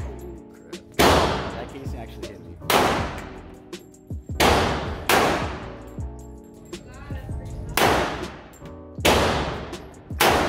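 .45 calibre M1911 pistol shots on an indoor range: about seven shots, unevenly spaced, each trailing off in a long echo.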